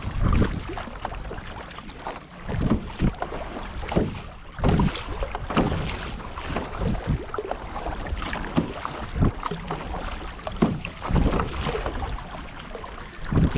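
Sea kayak being paddled on choppy sea: paddle blades splash and water slaps the hull in uneven strokes every second or two, with wind buffeting the microphone.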